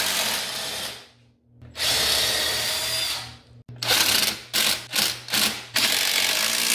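Cordless drill spinning a bolt at a quad's foot peg: two runs of about two seconds each, then a string of short trigger bursts, then a steady run near the end.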